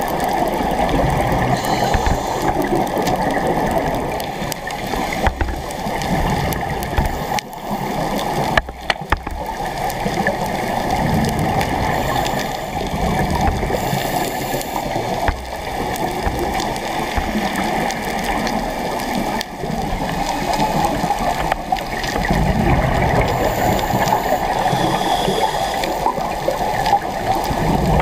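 Muffled underwater noise picked up by a diver's camera: a steady rush of water with gurgling, swelling louder in the low end near the end.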